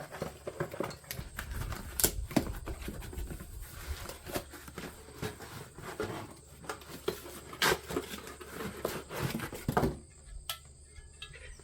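Rustling and scraping of packaging with scattered sharp knocks and clicks as smoker parts and packing are handled, stopping about ten seconds in.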